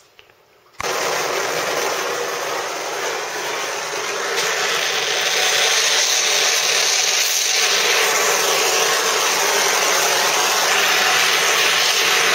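Oxy-acetylene torch flame hissing steadily as it heats a steel spring-mounting ear on an exhaust pipe red hot so it can be bent. It starts suddenly just under a second in.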